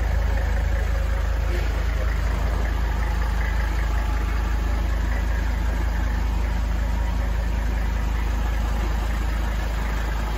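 1979 Mercedes-Benz 300SD's 3.0-liter turbodiesel inline-five idling steadily.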